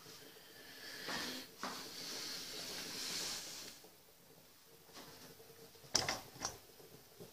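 Soft rustling handling noise for about three seconds, broken by a knock, then two sharp clicks about half a second apart.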